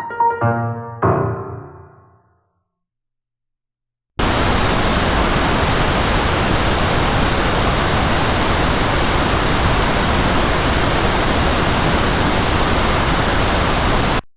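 The last piano notes of a track ring out and fade away. After a short silence, a steady pink noise test tone starts about four seconds in, holds an even level, and cuts off suddenly near the end.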